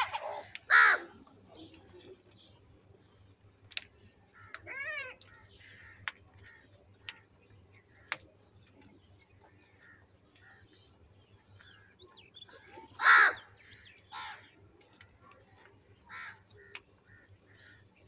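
House crows cawing. Two loud caws come right at the start and another about thirteen seconds in, with a few fainter calls between and scattered faint clicks.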